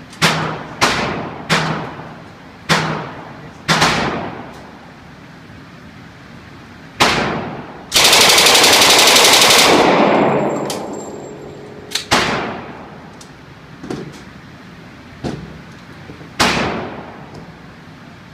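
Gunfire: a series of separate single shots, each ringing out with an echoing tail, and near the middle one full-automatic machine-gun burst lasting about two seconds.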